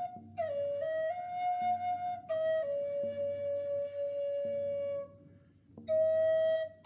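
A flute playing a slow melody of long held notes that step between a few nearby pitches, breaking off briefly about five seconds in. A soft low pulse comes back roughly every second and a half underneath.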